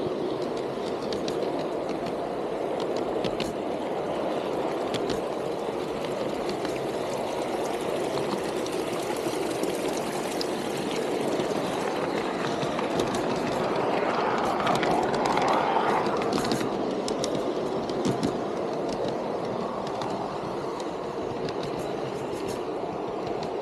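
Outdoor garden-scale model train running on its track, heard from a car of the train: a steady rolling hum of wheels and drive with scattered sharp clicks. It grows louder for a couple of seconds a little past halfway.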